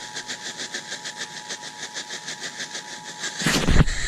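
Emergency Alert System attention signal, the steady two-tone 853 and 960 Hz alarm, heard over a hissy broadcast background with a fast pulsing buzz. The tone cuts off about three and a half seconds in, and a loud half-second burst of noise follows.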